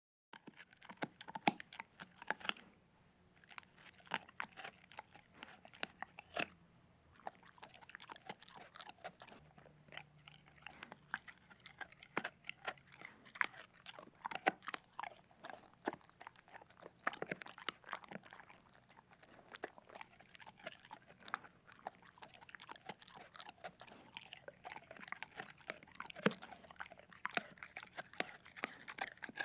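A dog chewing, with a steady run of irregular crunches and bites.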